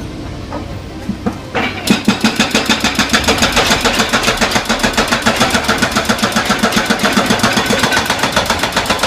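Backhoe excavator's hydraulic hammer breaker pounding in a rapid, even run of blows, starting about two seconds in, over the machine's running engine.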